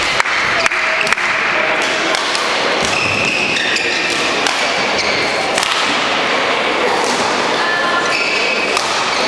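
Sports-hall ambience between badminton rallies: indistinct voices over a steady hiss, with a few sharp clicks in the first second and short high squeaks a few seconds in and near the end.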